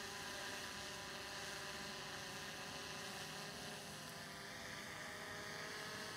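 DJI Mavic Pro quadcopter's propellers and motors humming faintly and steadily in flight, the pitch wavering slightly about four seconds in as the drone is steered.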